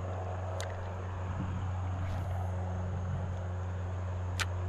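Steady low mechanical drone from an unseen motor, with two short sharp clicks, one about half a second in and one near the end.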